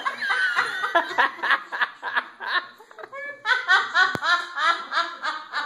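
Hearty laughter in rapid repeated bursts, easing off briefly about halfway and then picking up again in a steady rhythm, with a single sharp knock just after the restart.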